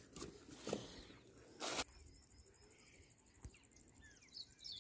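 A woven plastic sack rustling and crinkling as it is handled, in short bursts for about two seconds and stopping abruptly. Then faint birds chirping outdoors.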